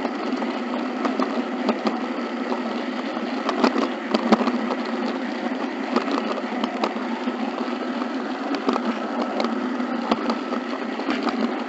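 HO scale model train rolling along the track: a steady mechanical running noise, with irregular sharp clicks as the wheels cross rail joints and turnouts.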